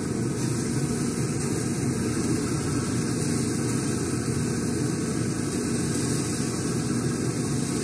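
A fan running steadily: a low drone with a faint hum in it.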